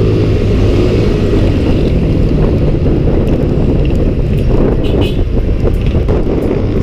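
Wind buffeting the microphone of a motor scooter on the move, over the scooter's small engine running steadily. The engine's steady tone is clearest for the first couple of seconds before the wind rumble covers it.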